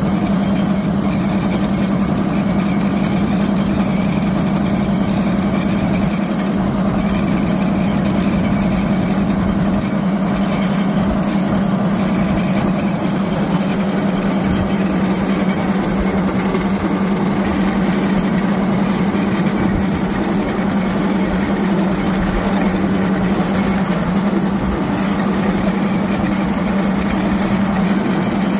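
Small engine of a motorized railcart running steadily at a constant pitch as the cart travels along the rails.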